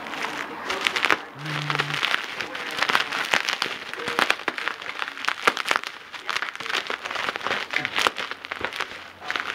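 Plastic packaging being handled off-camera: continuous crinkling and rustling with many sharp crackles.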